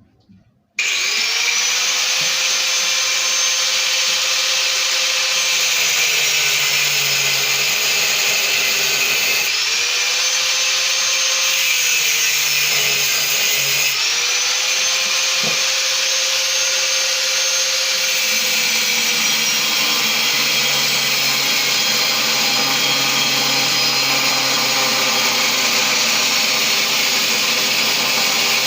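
Electric power tool switched on about a second in and run steadily while cutting, its motor pitch rising as it spins up and then sagging and recovering twice as it is pushed into the cut.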